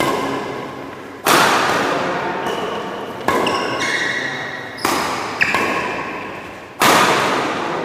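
Badminton doubles rally: a racket strikes the shuttlecock about six times, each hit sharp and echoing in the sports hall.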